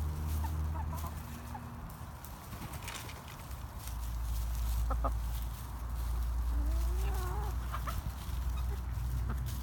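Hens clucking softly while feeding, with a wavering, rising-and-falling call a little after halfway, over a steady low rumble.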